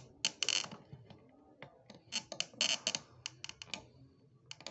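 Irregular short clicks and scrapes of a steel hand tool working the bezel of a stone-set silver ring.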